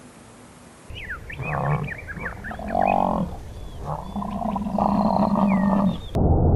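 Camel groaning in long, low, pitched calls, the second one longer, with birds chirping in short falling notes behind it. Near the end it cuts off suddenly to a steady rushing noise.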